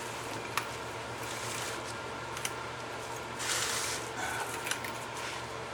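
Pry bar working at a disc brake caliper to push the piston back: a few faint metal clicks and a brief scrape about three and a half seconds in, over a steady low hum.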